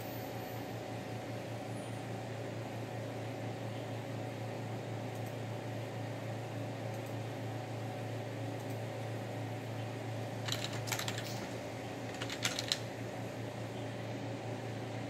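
Steady hum of an electric pedestal fan running, with two short clusters of light, rapid clicking, one a little past the middle and one soon after.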